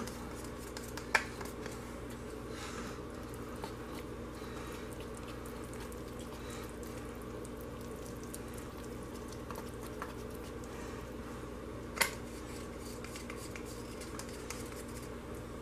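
Thick hot process soap batter being stirred and worked in a crock pot, faint soft stirring and small ticks over a steady low hum. Two sharp clicks stand out, about a second in and about twelve seconds in.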